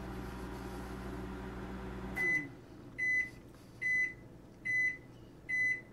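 Microwave oven running with a steady hum that cuts off about two seconds in, followed by five short, evenly spaced high beeps: the end-of-cycle signal that the cooking time is up.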